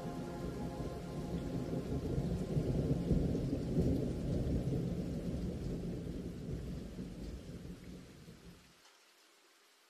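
A deep rumbling noise that swells, then fades away and cuts off about nine seconds in, leaving near silence.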